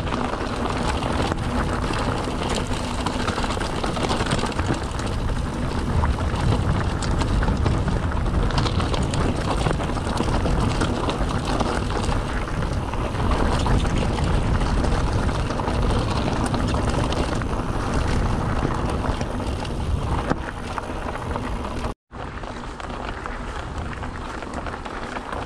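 Mountain bike riding over a rough trail: steady tyre roll and rattle with wind rushing over the camera microphone. Near the end it cuts out for a moment and resumes a little quieter.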